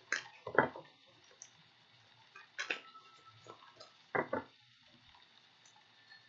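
Tarot cards being handled on a table: about four short taps and knocks, the loudest about half a second in, with faint rustling between.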